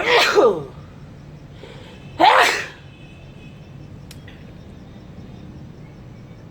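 A man sneezing twice, about two seconds apart, each sneeze preceded by a quick in-breath.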